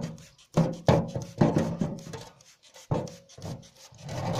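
Irregular rubbing and scraping strokes as an oily air-cooled engine cylinder head is squirted with petrol from a plastic squeeze bottle and turned over on a table.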